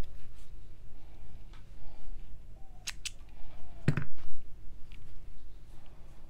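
Small spring-loaded thread snips cutting yarn ends: two quick, sharp snips about three seconds in, then a louder knock a moment later.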